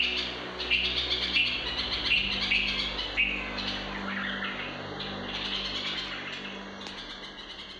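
Bulbuls chirping in short calls repeated about twice a second, over a steady low hum, growing fainter toward the end.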